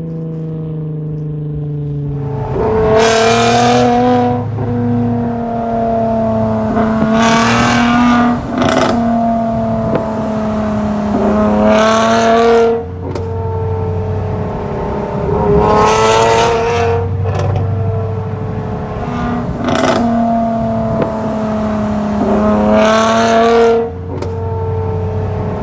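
2020 Lexus RC 350's 3.5-litre V6 exhaust, the engine blipped repeatedly, one loud rise about every four seconds, with sharp pops and crackles from the exhaust in between.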